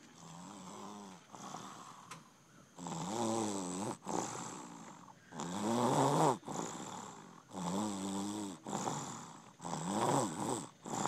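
A 20-month-old toddler snoring in deep sleep: a run of about nine snores, each about a second long with a wavering pitch, rising and falling with his breathing. The snores are softer for the first few seconds, then grow louder.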